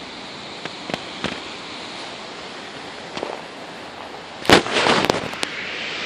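Strong wind blowing as a steady rushing hiss, broken by a few sharp pops and cracks, with the loudest cluster of cracks about two-thirds of the way through.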